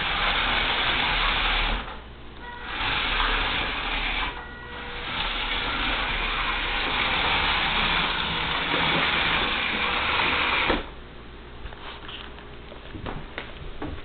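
Roomba robot vacuum's motors running as it drives across a hardwood floor, stopping briefly twice. The motor noise cuts off suddenly about eleven seconds in, leaving a quieter stretch with a few light clicks.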